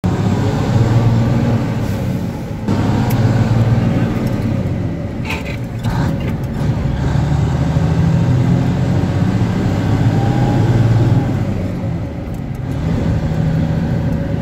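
1975 Dodge Big Horn tractor's diesel engine pulling through town, heard from inside the cab. The engine note rises and falls with the road, dipping briefly twice.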